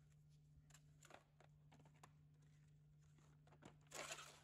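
Near silence under a faint steady low hum, broken by a few faint taps and rustles of a plastic tool case being handled on a tile floor, with a brief louder clatter about four seconds in as the case is opened.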